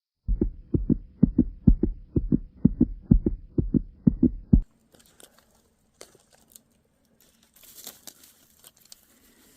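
Heartbeat sound effect: loud, deep double thumps at a steady pace of about two beats a second, cutting off abruptly about four and a half seconds in. Faint rustling follows.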